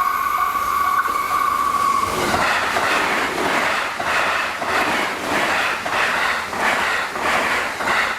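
A level crossing bell dings faintly while a train horn sounds one steady note for about two seconds. Then a train passes close by at high speed: a loud rush of wheel and wind noise, with a regular clatter of wheels over the rail joints.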